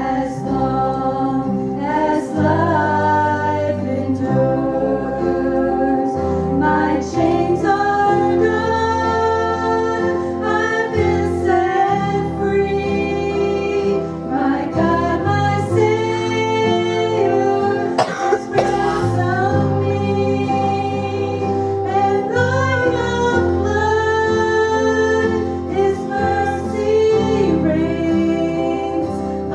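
Gospel song: voices singing a melody over instrumental accompaniment with sustained bass notes.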